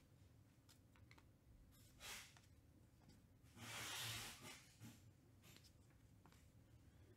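Faint handling of a stack of trading cards being flipped through by hand: a few soft ticks and a short papery swish of cards sliding against each other, the loudest about four seconds in.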